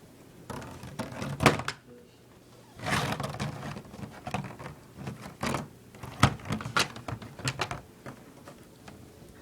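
A series of knocks, clicks and clattering thuds, like hard objects being handled and set down, with a longer scraping rattle about three seconds in.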